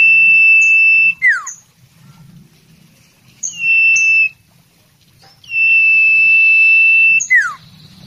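A common iora (sirtu/cipu) singing: long, steady, high-pitched whistles. The first and last are each held for over a second and end in a quick falling note; a shorter whistle comes in the middle.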